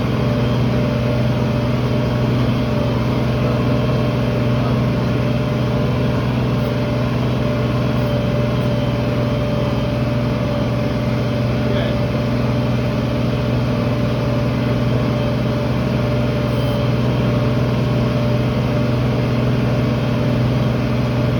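Tractor engine running steadily under load while pulling a field cultivator, heard from inside the cab as an even low drone with a faint steady whine above it.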